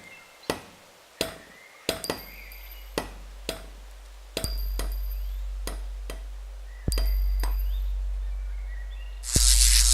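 Robot sound effects: a series of sharp metallic clicks and clanks, a low electrical hum that comes in about two seconds in and steps up louder twice, then a loud burst of hiss near the end.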